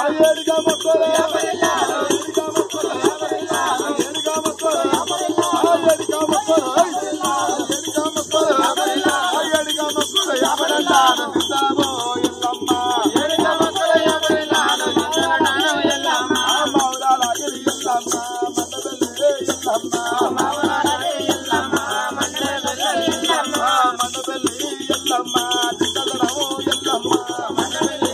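Men singing a Telugu devotional folk song to the goddess Yellamma, with a hand-held drum beating and ankle bells jingling in rhythm, continuously throughout.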